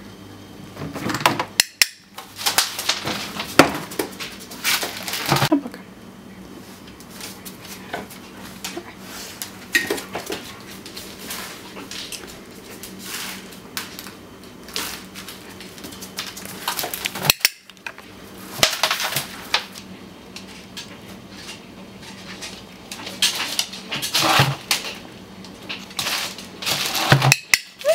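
Intermittent clattering and knocking of hard junk items being picked up and dropped into a plastic bin lined with a bin bag, in bursts of several sharp knocks with quieter gaps between.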